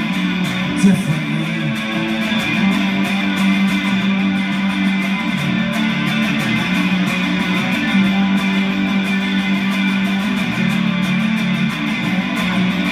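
Amplified electric guitar strummed steadily in an instrumental break of a solo rock song, after one last sung word.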